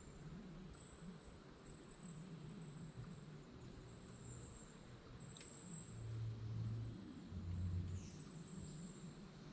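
Faint woodland ambience: a thin, high insect trill that comes and goes in stretches, with a low hum swelling and fading about two-thirds of the way through.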